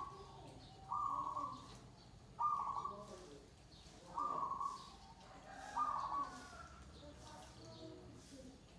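Zebra dove (perkutut) cooing: four short, stepped coo phrases about a second and a half apart, with faint high chirping in the background.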